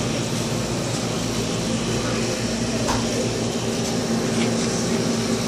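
Steady hum and hiss of a convenience store's air-handling or refrigeration equipment, with no breaks.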